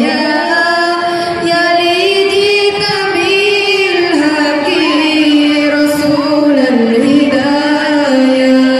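Two young women singing sholawat, an Islamic devotional song praising the Prophet, together into microphones: a continuous melody of long held notes with ornamented turns.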